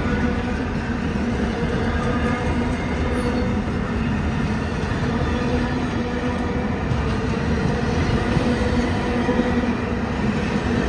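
CSX F40PH diesel locomotives and passenger cars passing close by, a steady loud rumble of engines and wheels on the rails.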